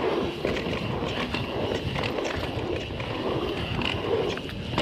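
Guerrilla Gravity MegaTrail mountain bike running fast down a dirt trail: a steady rush of tyres rolling on dirt, with scattered short knocks and rattles from the bike over bumps.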